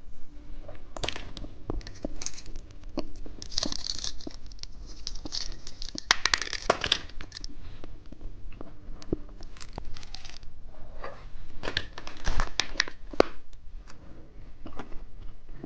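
Candy wrapper being torn open and crinkled by hand, in several bursts of crackling with small clicks between them.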